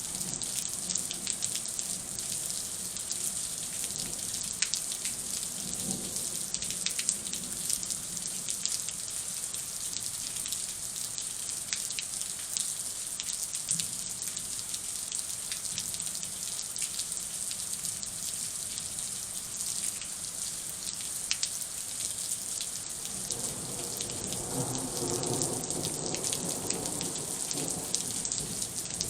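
Rain falling steadily during a thunderstorm, a continuous hiss with many separate drops ticking close by. About three-quarters of the way through, a low rumble swells for a few seconds and fades.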